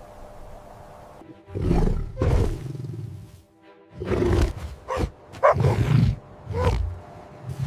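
Series of loud animal roars from a big beast, several short roars in quick succession starting about a second and a half in, with a short pause midway, over background music.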